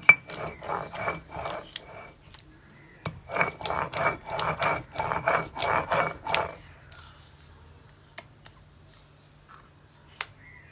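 Stone roller of a hand grinding stone rubbing back and forth over the flat stone slab, grinding soaked urad dal and ginger into a coarse vada batter. It makes rhythmic scraping strokes, about three a second, in two runs with a short pause between, and stops about six and a half seconds in.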